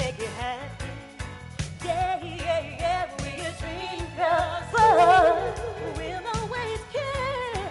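Female vocal group singing wavering, held notes over a band with a steady beat, loudest about five seconds in.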